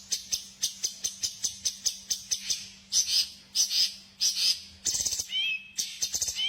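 Small bird calling in a fast series of sharp, high chip notes, about four a second. The series has a few longer buzzy bursts in the middle and a couple of short whistled glides near the end. It is the kind of recorded birdsong played to provoke cage birds into singing.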